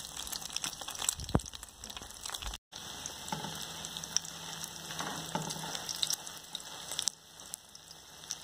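Egg-battered dried-shrimp fritters frying in hot oil in a metal pan: a steady sizzle with scattered crackles and pops, broken off for an instant about a third of the way in.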